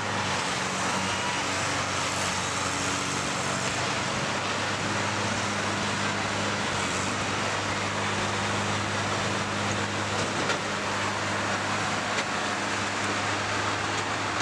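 Combine harvester engines running steadily in a demolition derby, a constant low drone under a noisy wash of sound, with a couple of faint knocks late on.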